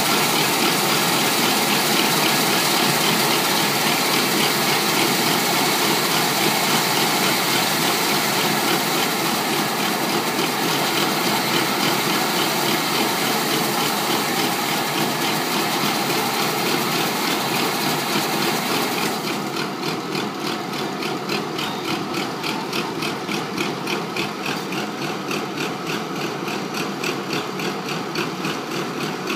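Rice combine harvester engine running steadily with a dense mechanical noise. About two-thirds of the way through it drops in level and the high hiss falls away, leaving an even pulsing engine beat.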